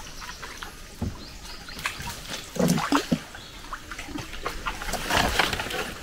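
Water trickling and splashing around a small canoe as it moves, with scattered light knocks and clicks and a short dull thump about two and a half seconds in.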